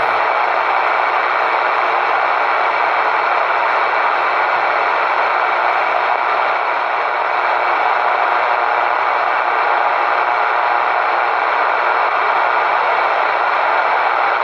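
Steady static hiss from a CB radio's speaker with the squelch open.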